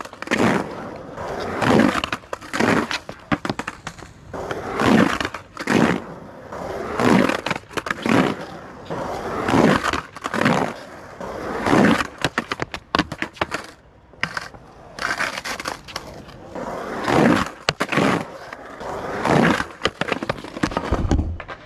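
Skateboard wheels rolling on concrete, with repeated sharp clacks and scrapes of the board against a brick quarter pipe.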